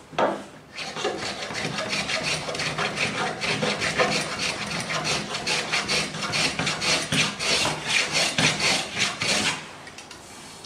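Stanley hand plane taking short, rapid strokes across the oak edge of a picture frame, shaving the miter splines flush: a rhythmic scraping, about three strokes a second. It starts with a sharp knock as the plane meets the wood and stops about a second before the end.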